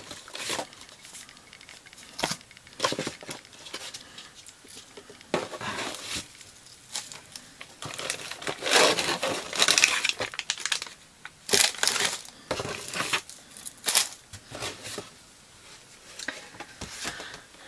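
Plastic wrapping and paper packaging being handled as a parcel is unpacked: irregular crinkling and crackling rustles in short bursts.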